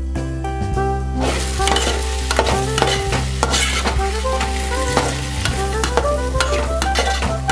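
Vegetables with spice powders frying in an aluminium pot and being stirred with a metal slotted spoon: sizzling with scraping and clinking of the spoon on the pot, starting about a second in. Background music plays underneath.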